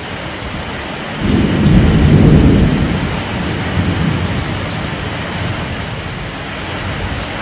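Heavy rain falling steadily, with a low rumble of thunder that starts suddenly about a second in and fades away over the next few seconds.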